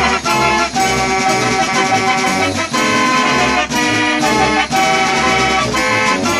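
A 48-key Bennion/Whitehead fair organ playing a march: pipe ranks sound the melody and chords, and the organ's drums beat time.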